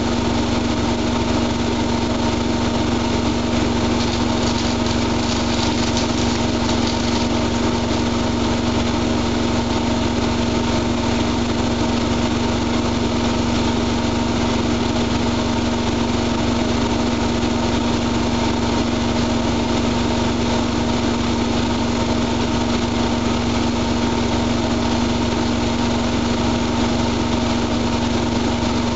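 Siemens iQ front-loading washing machine running steadily, its motor giving a constant hum with a steady whining tone. There are no pauses or drum reversals.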